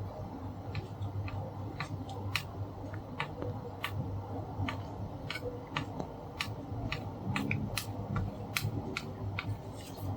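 Small sharp clicks and taps, irregular at roughly two a second, from a soldering iron being worked against a label maker's LCD ribbon-cable joint, over a steady low hum.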